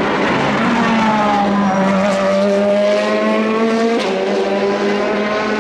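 GT race car engine running hard at high revs, its pitch dipping slightly about a second in, then holding steady, with a sharp gear change about four seconds in.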